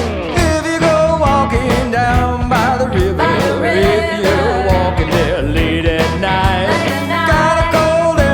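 Country-rock band music without vocals: guitars, bass and a steady drum beat under a wavering lead melody.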